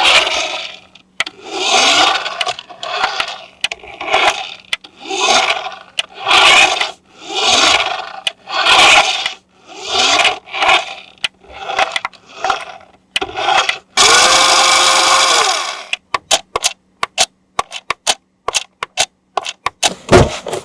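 About a dozen rhythmic scraping strokes, roughly one a second, then a steady whir lasting about two seconds, then a run of quick sharp clicks.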